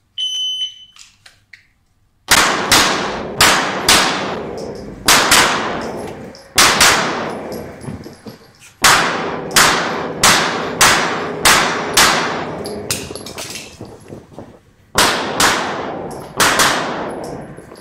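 A shot timer beeps once at the start. About two seconds later a Smith & Wesson M&P Pro C.O.R.E. pistol fires about two dozen rapid shots in quick pairs and strings, separated by short pauses. Each shot rings on in the reverberant indoor range.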